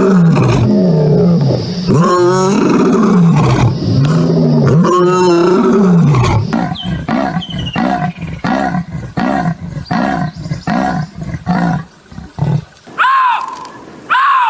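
Big cat roaring bout, most like a lion's: several long, loud, moaning roars, then a run of shorter grunts, about one a second, that grow weaker. Near the end come two short, high-pitched arched calls from a different animal.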